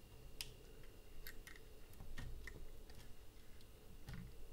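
A few faint, irregular small clicks and taps of fingers and plastic parts as a battery power connector is worked into its socket inside an opened camera body.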